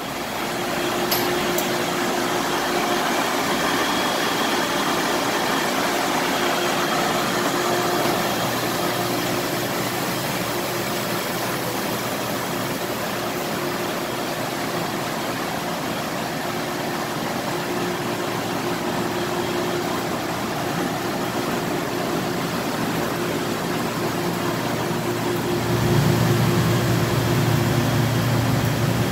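Chemcut 547 XL conveyorized developer running: a steady whir of its pumps and filtration with a constant hum. A deeper rumble comes in near the end.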